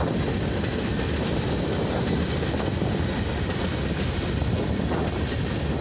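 Freight train cars, mostly open-top hoppers, rolling past close by at a road crossing: a steady, even rumble of wheels on the rails.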